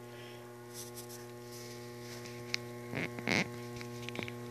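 Electrolux washing machine's electric drive motor running with a steady hum, belt off. The technician puts the noise down to worn motor bearings rather than the drum's bearings. A few brief sounds break in about three seconds in.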